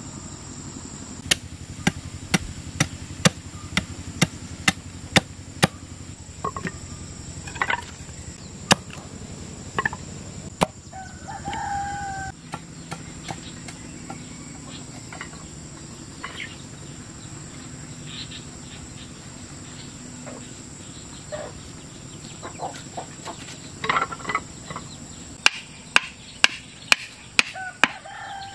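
Hammer striking bamboo stakes: runs of sharp knocks about two a second near the start and again near the end, with softer taps between. A chicken calls once near the middle, over a steady high insect drone.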